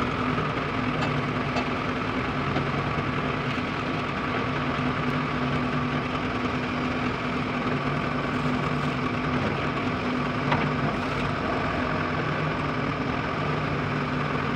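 Backhoe loader's diesel engine running steadily as the front bucket is tipped and raised. A low hum in it swells and fades every second or two.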